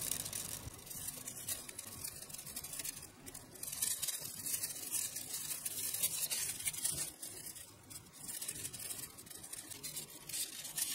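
Thin bamboo weaving strips rustling and scraping against each other as they are pulled and threaded by hand through a woven bamboo cone, with many small ticks.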